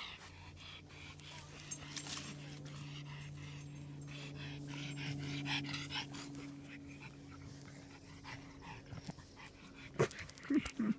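A dog panting rhythmically over a steady low hum, with a few sharp knocks about ten seconds in.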